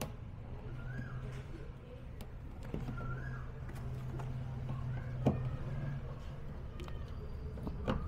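A hand screwdriver turning a screw in the sheet-metal back panel of a washing machine, with a few light clicks and one sharper knock about five seconds in, over a steady low hum.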